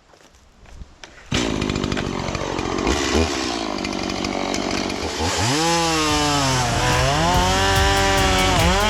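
Two-stroke gas chainsaw starting after being flooded, catching suddenly about a second in and running. From about halfway it revs up and down several times.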